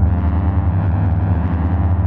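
Deep ambient synthesizer drone with a steady low rumble, the kind of 'galaxy' space soundscape used for sleep.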